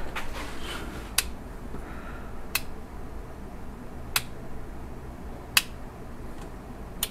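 Five sharp, short clicks, evenly spaced about one and a half seconds apart, over a faint steady low hum.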